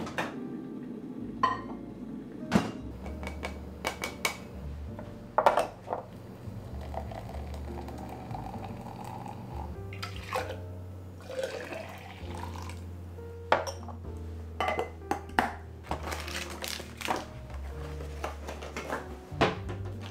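Glassware and a tumbler knocking on a wooden cutting board as they are picked up and set down, a dozen or so sharp clinks and taps, with liquid poured twice, about a third of the way in and again around the middle.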